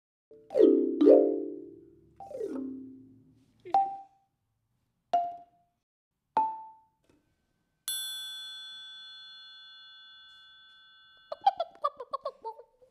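Cartoon sound effects with no words. First three pitched notes ring out and fade, then come three short pings a second or so apart. Near eight seconds a bright bell-like ding rings and dies away over about three seconds, and just before the end there is a quick run of short chattering sounds.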